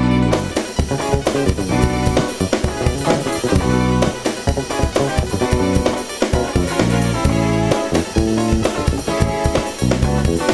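Instrumental music with a steady drum-kit beat under sustained pitched notes.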